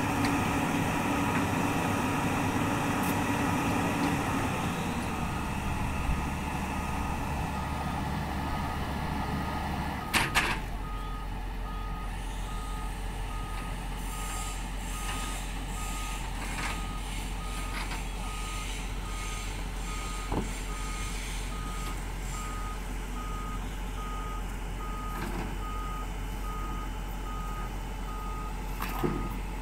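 Hyundai wheel excavator's diesel engine working under hydraulic load, then a couple of sharp metallic clanks about ten seconds in. After the clanks the engine settles to a lower steady hum and a travel alarm beeps at an even rhythm.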